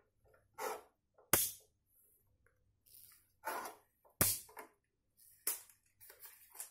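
Handling noise from a homemade string pulley hoisting a plastic bag of glass marbles: a series of short rustles and scrapes from the string and bag. Two sharp knocks stand out, about a second and a half in and about four seconds in.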